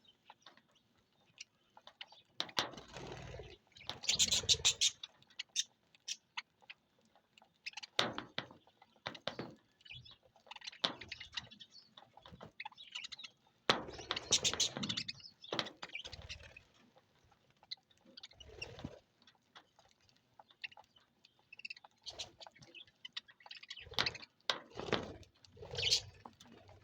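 Budgerigars in a colony chirping and chattering in short, scattered bursts with brief quiet gaps between them.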